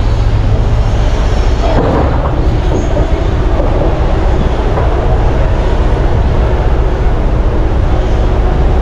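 Large hydraulic mining excavator working, its big diesel engine running steadily under load with a deep drone as it swings and digs. There is a rougher, louder surge about two seconds in.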